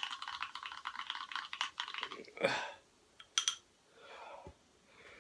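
A person gulping down a drink from a glass: a fast run of small wet clicks from the mouth and throat while swallowing, then a short breath out about two and a half seconds in and quieter breathing.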